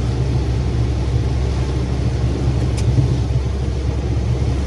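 Steady low rumble of a car driving on a wet highway, heard from inside the cabin: engine and tyre noise on the wet road.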